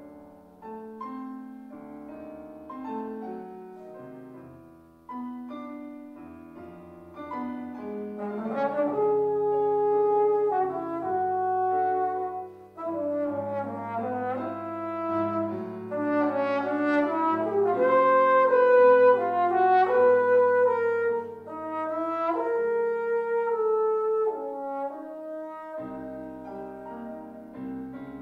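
Trombone playing a classical solo line of held, connected notes with piano accompaniment, swelling louder in the middle and falling softer near the end.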